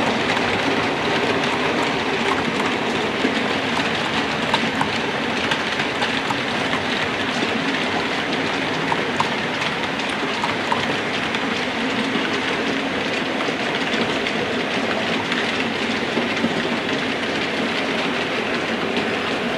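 Model railway trains running on the layout's track: a steady running noise with many light clicks of wheels passing over rail joints and points.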